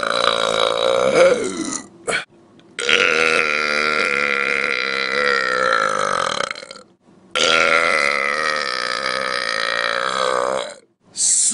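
A man belching loudly: a string of long, drawn-out burps. One ends about two seconds in, two run about four seconds each with short silent gaps between them, and another begins near the end.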